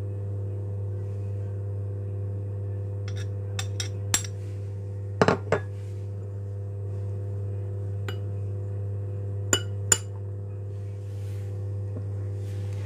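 Metal spoon clinking and tapping against a glass bowl while pressing crumbled cake down into a base. The loudest clink, with a short ring, comes about five seconds in, over a steady low hum.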